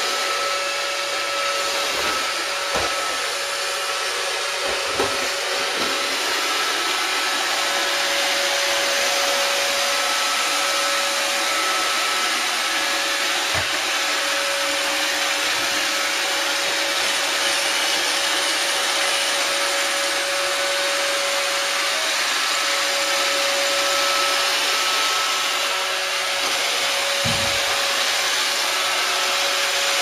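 iRobot Roomba 577 robot vacuum running: a steady whirring hiss with a constant whine, and a few light knocks.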